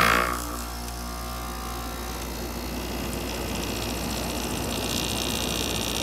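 Mid-1980s Emerson Quiet Kool 7000 BTU air conditioner starting up: a sudden loud start, then its rotary compressor and fan running with a steady hum and a rush of air that grows slowly louder.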